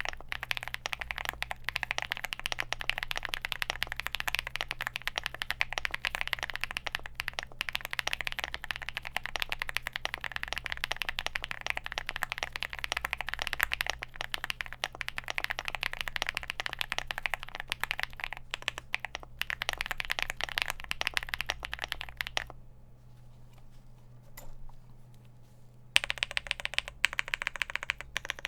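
Typing on a Leobog Hi75 aluminium gasket-mounted keyboard with factory-lubed Gateron Quinn tactile switches, a polycarbonate plate, foam and tape mod, and PBT keycaps: a dense, fast stream of key presses. The typing stops for about three seconds near the end, then starts again.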